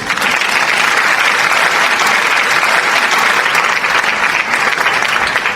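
Audience applauding, a dense steady clapping of many hands that starts suddenly at the end of a song and holds throughout.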